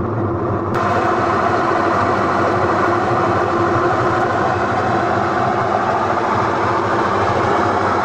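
Electrolux EWT604S top-loading washing machine running its spin cycle: the drum whirs steadily under a constant motor hum. It is spinning properly again, with the not-spinning fault repaired. About a second in, the sound turns brighter and more hissy.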